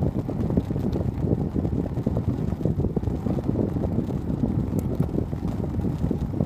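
Wind buffeting the microphone of a camera on a moving bicycle: a steady, gusty low rumble.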